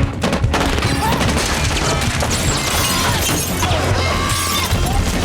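Action film soundtrack: music with crashing impacts and something shattering mixed in, loud throughout.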